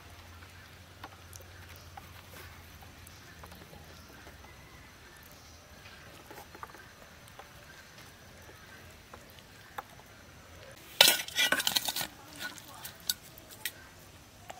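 Steel bowls and utensils clattering and clinking for about a second near the end, followed by a few lighter clinks. Before that there are only faint taps of leaf parcels being handled.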